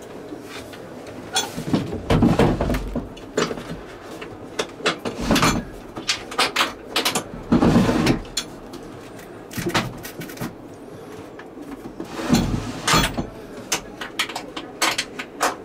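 Portable toilet's metal floor clamp being worked by hand: a string of sharp clicks and rattles, with several heavier knocks from the plastic toilet and its bracket.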